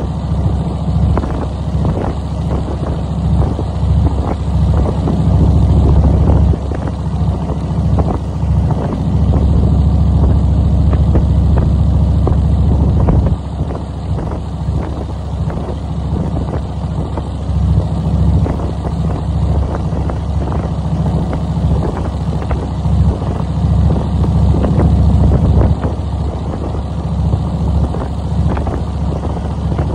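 Wind buffeting the microphone of a moving vehicle: a heavy low rumble that swells and drops every few seconds over the steady noise of the vehicle running along the road.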